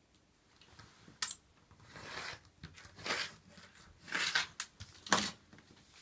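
Snap-off utility knife drawn along a plastic ruler, cutting paper in several short noisy strokes. A sharp knock about five seconds in.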